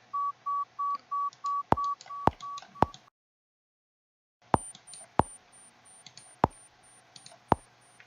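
Hearing-test app tones: a mid-pitched pure tone pulsing in short beeps about three times a second, with a few sharp clicks as responses are entered. After a brief silent break the beeps go on as a much higher, fainter pulsed tone, again with sharp clicks, as the test moves to a higher frequency.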